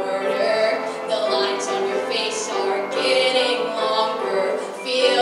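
A young female singer singing a musical-theatre song into a microphone over instrumental accompaniment.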